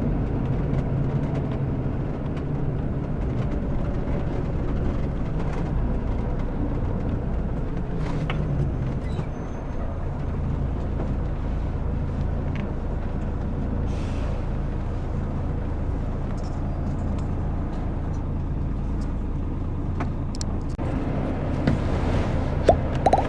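Mercedes-Benz O-500RS coach's diesel engine running under way, heard from inside the cabin as a steady low rumble, with small clicks and rattles from the coach body and a few sharper ticks near the end.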